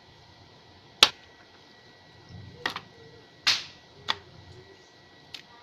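Sharp knocks of a knife on a wooden cutting board as raw squirrel meat is chopped into pieces: about five, irregularly spaced, the loudest about a second in.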